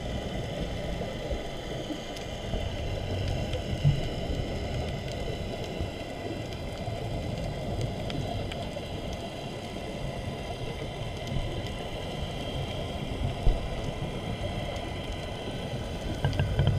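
Muffled underwater noise picked up through a GoPro's waterproof housing: a steady low rush of water with faint scattered clicks. Near the end a rhythmic low pulsing begins, about four beats a second.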